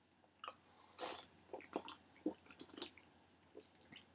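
A man drinking from a styrofoam cup: faint, scattered sips and swallows.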